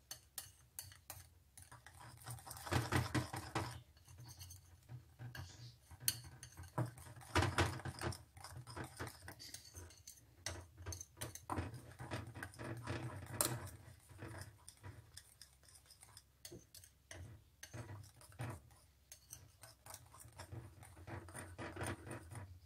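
Wire whisk beating rice flour and sugar into coconut milk in a ceramic bowl: a fast run of light metal clinks and scrapes against the bowl, coming in spurts with short pauses.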